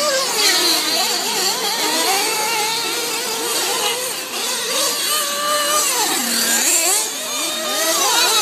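Several nitro RC truggies' small two-stroke glow engines racing. Their overlapping pitches rise and fall constantly as the trucks accelerate and back off around the track.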